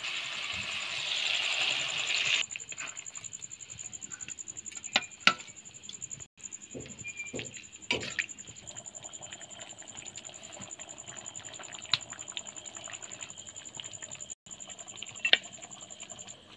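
Curry bubbling and simmering in a steel kadai over a wood fire, with a louder hiss in the first two seconds and a few sharp clicks, the loudest about five seconds in and near the end. A steady high-pitched trill runs underneath.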